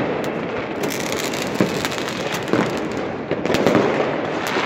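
Many fireworks going off across a city at once: a dense, continuous crackle packed with pops and scattered louder bangs.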